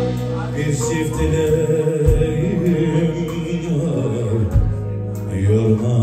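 Live band music of a Turkish song: keyboard, electric guitar and drums, with a man singing drawn-out wavering notes.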